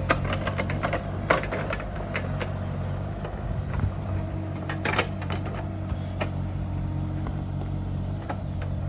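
Bobcat E37 mini excavator's diesel engine running steadily, with scattered sharp knocks and clanks from the machine at work; the sharpest comes about a second in, with another cluster about five seconds in.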